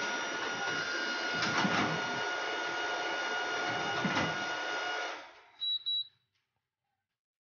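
RISO CV1200 digital duplicator running, a steady mechanical whir with several steady tones and a few clacks. It winds down about five seconds in and is followed by two short high beeps.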